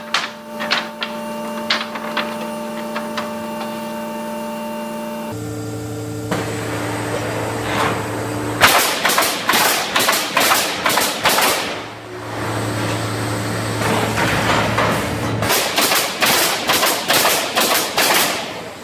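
Automatic pallet nailing machine: a steady machine hum with light knocks of wooden boards being laid in. Then two bursts of rapid pneumatic nailing, each about three seconds long with several sharp shots a second, as the nailing heads drive nails into the pallet boards.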